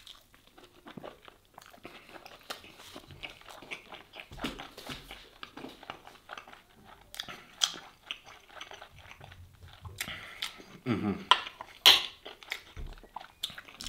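Close-up chewing and crunching of a toasted sujuk and cheese sandwich, with irregular crackles of the toasted bread and a few louder crunches near the end.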